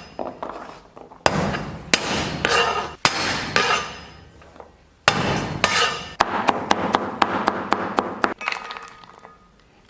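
A kitchen cleaver striking a chopping board while mincing garlic. A few heavy strokes come about two a second, then a fast run of chops follows in the second half and stops shortly before the end.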